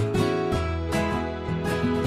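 Instrumental background music led by acoustic guitar, with notes and chords struck at an even beat of about two a second.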